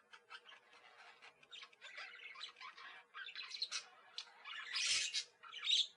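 Sun conures chirping and squawking: a scattered run of short calls that grows louder about five seconds in.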